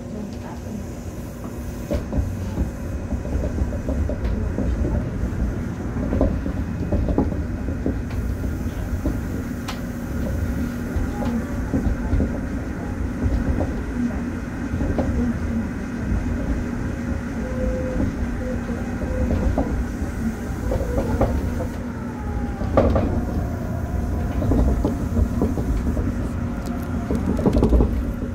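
Daegu Metro Line 3 straddle-beam monorail running between stations, heard from inside the front car: a steady rumble of its rubber tyres on the concrete guideway beam, with a constant hum and a few short knocks.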